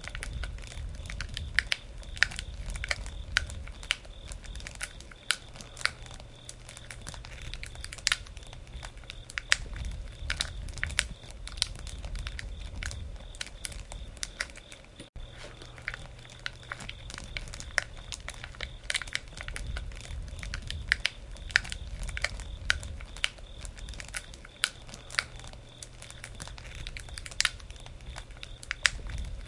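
Wood campfire crackling, with frequent irregular sharp pops over a low rumble of the flames; the sound drops out for an instant about halfway through.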